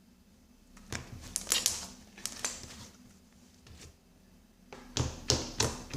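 Homemade glue slime being squeezed and worked by hand, giving runs of sharp, sticky clicks and pops: one run about a second in and another near the end.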